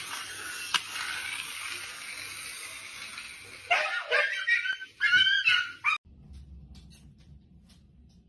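A dog giving a few short, high-pitched yelps and whines about four seconds in, after a stretch of steady hiss.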